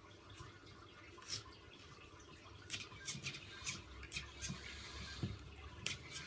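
Faint, scattered light clicks and taps, several in the second half, as the RC car and its parts are handled.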